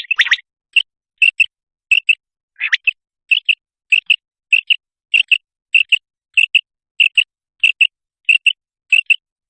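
Common quail calling: short high notes, mostly in quick pairs, repeated about once every 0.6 s, with a longer sweeping note now and then. It is the quail call used to lure quail for hunting.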